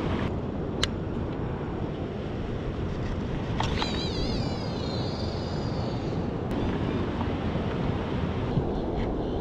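Steady wind on the microphone over ocean surf. From about three and a half seconds in, a wavering whine falls in pitch for a few seconds and then fades.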